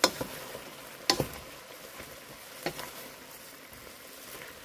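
Stir-fry of vegetables and beef sizzling steadily in a pan, with a few sharp knocks of the stirring utensil against the pan, the loudest right at the start and about a second in, another a little later.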